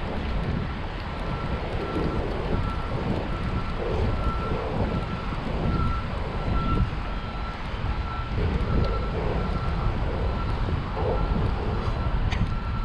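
Wind buffeting the microphone while riding a bicycle: a steady rushing rumble. A thin, high, steady tone runs through it, dropping out briefly now and then.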